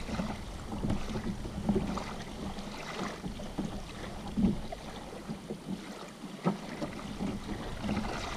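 Small waves lapping against the shore, with wind rumbling on the microphone that eases about halfway through. A few light knocks.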